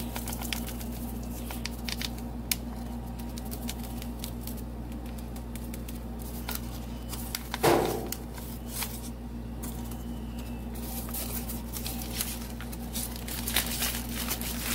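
Light clicks, taps and crinkling of hands handling food and spice containers, over a steady low hum. A short louder sound with a falling pitch comes about eight seconds in.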